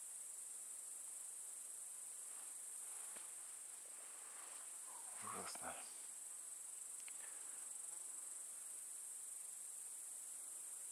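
Steady high-pitched chirring of grasshoppers (bush crickets) in the evening woods. About five and a half seconds in, a brief rustle stands out over it.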